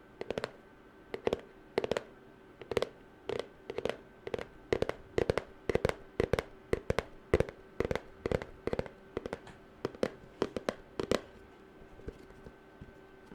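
Fast fingernail tapping, in quick flurries of several taps at about two flurries a second, stopping near the end.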